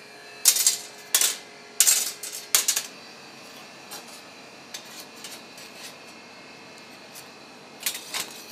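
Long metal tandoor rods clinking and scraping against the oven's metal-ringed mouth as the naan is worked inside: four sharp strikes in the first three seconds, lighter taps after, and two more strikes near the end, over a faint steady hum.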